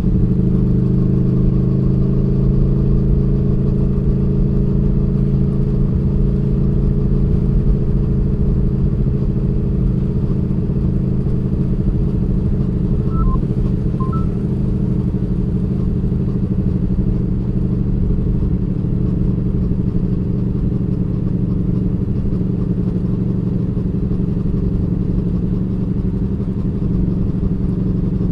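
2019 Aprilia Tuono V4 1100 Factory's V4 engine on its stock exhaust, running at a nearly constant engine speed under way, with a steady pitch and no shifts.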